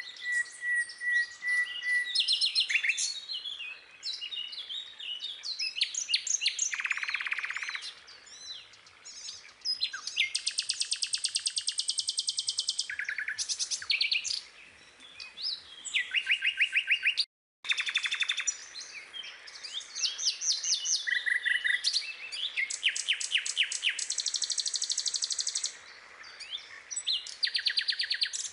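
Songbirds singing: a mix of chirps and fast, evenly pulsed trills, one after another. The sound cuts out completely for a moment about seventeen seconds in.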